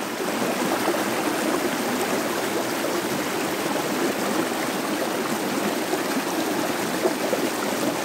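Small stream running over rocks: a steady rush of flowing water.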